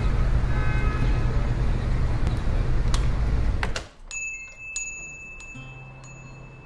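Street traffic ambience with a steady low engine rumble, cutting off sharply about four seconds in. A quieter room follows, where a high bell-like chime rings out with several strikes.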